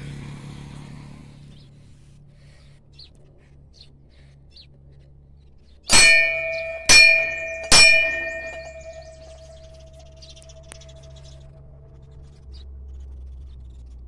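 A metal temple bell struck three times, a little under a second apart, each ring dying away slowly. Faint bird chirps.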